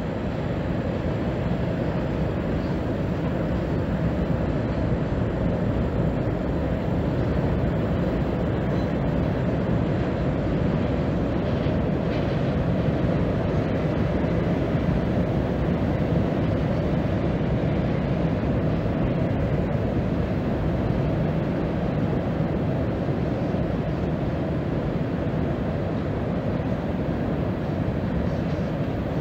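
Distant freight train crossing a high steel railroad trestle: a steady, unbroken rumble of the cars rolling over the bridge.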